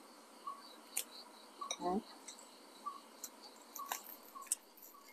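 Scattered dry ticks and small crackles as smoked, dried beef is pulled apart into thin shreds by hand. There is a short voice sound about two seconds in.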